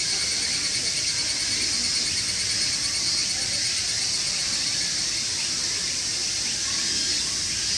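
Steady chorus of summer insects: an even, high shrill buzz with a fainter, lower trilling band beneath it.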